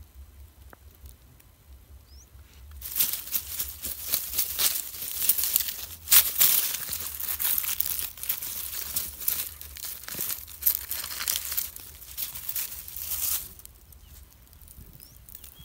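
Close crackling and rustling of dry leaves, soil and rock being handled, starting about three seconds in and stopping shortly before the end.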